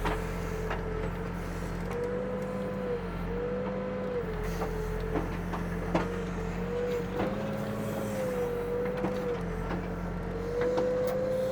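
Backhoe's diesel engine running steadily under a high whine that wavers slightly up and down as the hydraulics work the bucket, with a few short knocks.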